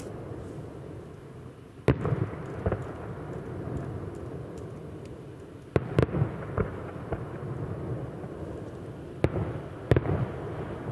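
Aerial fireworks shells bursting, heard from a distance: a series of sharp bangs about two, six and ten seconds in, with a low rumble between them.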